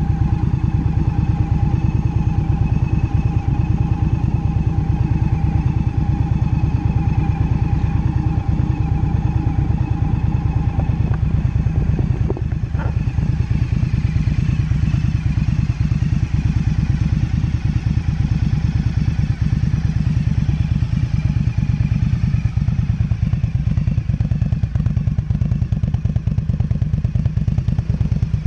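2018 Indian Scout Bobber's V-twin idling steadily through a stage 1 exhaust, a deep, even pulse with no revving.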